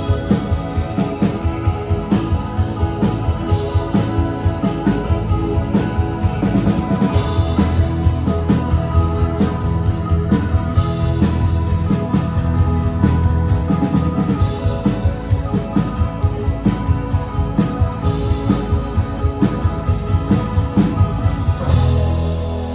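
Live rock band playing an instrumental passage: electric guitars and bass guitar over a steady drum-kit beat. Near the end the drums stop and the guitars ring on.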